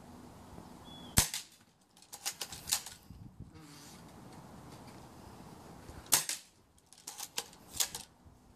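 Modify MOD24 bolt-action airsoft sniper rifle firing twice, about five seconds apart, each sharp shot followed about a second later by a quick run of clicks as the bolt is worked to cock it again.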